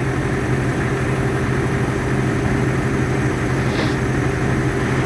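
An engine idling steadily, a low even hum with a higher drone over it.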